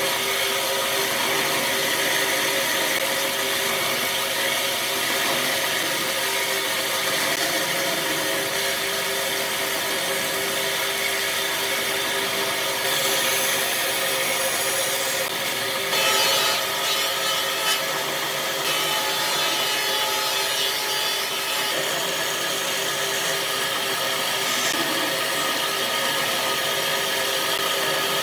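Power tool running steadily while working wood, with a steady hum over the noise of the cutting or sanding; the sound shifts a little about halfway through.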